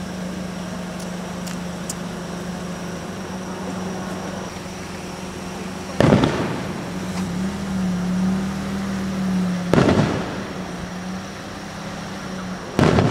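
Three aerial firework shells bursting, with deep booms about six, ten and thirteen seconds in, each trailing off in a short rumble. A steady low hum runs underneath.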